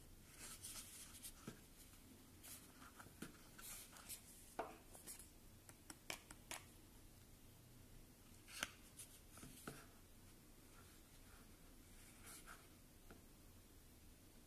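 Faint handling noise in near silence: scattered light clicks and brief rustles at irregular intervals, the loudest click about eight and a half seconds in.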